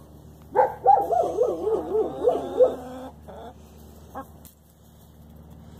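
An animal calling: a quick run of about eight short notes, each rising and falling in pitch, lasting about two seconds and starting about half a second in.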